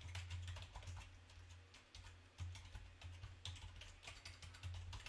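Faint typing on a computer keyboard: an irregular run of key clicks as a line of text is entered.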